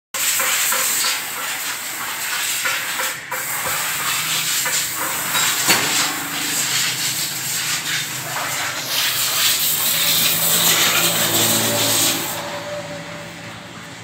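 Compressed-air blow gun hissing in one long, uneven blast, blowing dust and dirt off a motorcycle frame; it stops about twelve seconds in.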